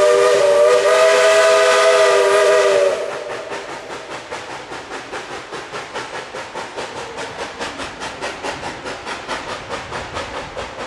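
A narrow-gauge steam locomotive's chime whistle sounds a held chord of several tones, then cuts off about three seconds in. After it the train runs on with a quick, even rhythm of hissy steam exhaust beats, about five a second.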